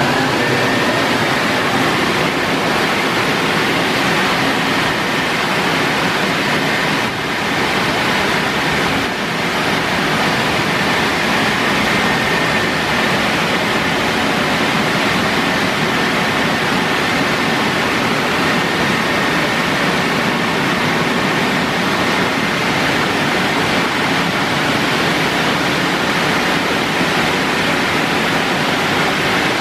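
Ceccato Aquarama Stargate S7 rollover car wash gantry running over a car: a loud, steady rushing noise with a faint high whine, dipping briefly about seven seconds in.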